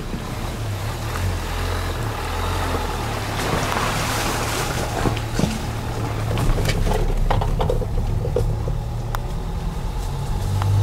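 Dacia Duster's diesel engine running low and steady, heard from inside the cabin as the car crawls over a rough track, tyres crackling over gravel and stones. About four seconds in there is a rush of splashing as the wheels go through a shallow stream.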